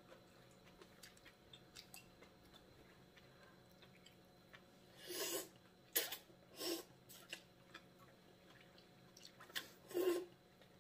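Slurping hotpot greens and soup off chopsticks. There are a few short, loud slurps from about five seconds in, and the last comes near the end, after faint small clicks.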